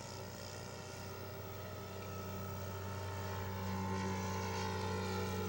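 Radio-controlled scale model airplane flying overhead, its engine and propeller giving a steady drone at an even pitch that grows gradually louder as it comes closer.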